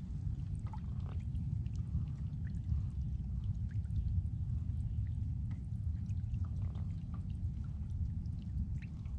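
Water trickling and lapping with faint scattered ticks, over a low steady rumble.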